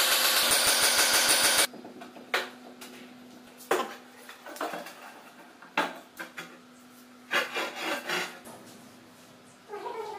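Handheld angle grinder cutting through a granite countertop: a loud, harsh cutting noise over the motor's whine that stops abruptly about a second and a half in. Then scattered knocks and scrapes as the cut slab is handled.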